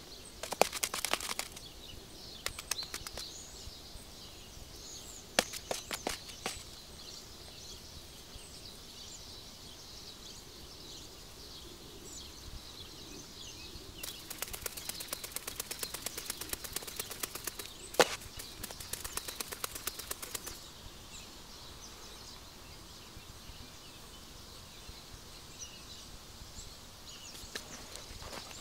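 Fresh spruce shoots crackling and snapping in the hands as they are picked and stripped, in a few short bursts early on and a long run of quick crackles about halfway through with one sharp snap. Forest birds chirp faintly in the background.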